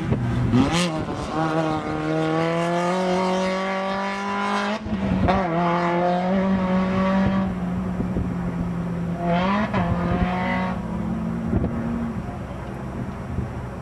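Desert race truck's engine accelerating hard, its pitch climbing steadily, dropping at a gear shift and climbing again. A shorter burst of revs follows later.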